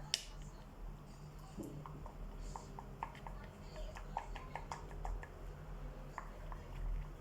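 A utensil stirring slime in a bowl: many small, quiet clicks and light taps against the bowl.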